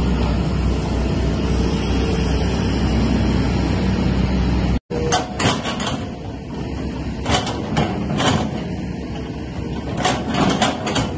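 Excavator's diesel engine running steadily. About five seconds in the sound cuts off abruptly and gives way to a series of sharp, irregular metallic clanks and scrapes of machinery working.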